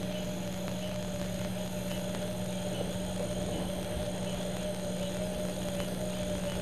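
A steady low hum with a thin, slightly wavering higher tone above it, over an even hiss.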